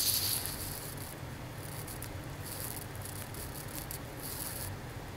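Computer mouse being slid and clicked on a desk: short faint hissy scrapes and a few light clicks every second or so, over a low steady hum.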